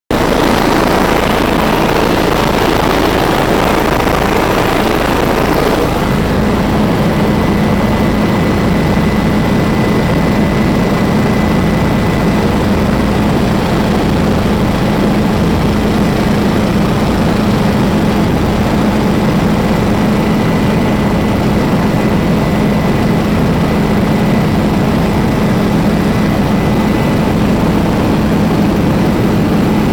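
Tour helicopter in flight, its engine and rotor noise heard loud and steady from inside the cabin. About six seconds in, the hiss drops and a steady low hum and a thin high whine come through.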